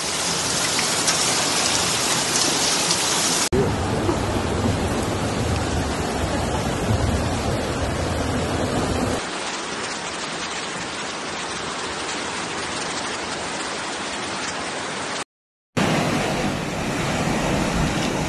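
Loud, steady noise of heavy rain and floodwater rushing through streets. Its character changes abruptly a few times as separate recordings are cut together, with a brief drop-out about fifteen seconds in.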